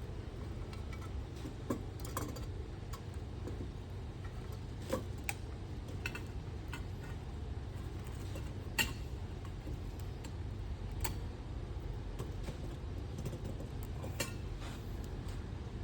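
Scattered light clicks and taps from hand work on switch wiring, a few seconds apart, over a steady low hum.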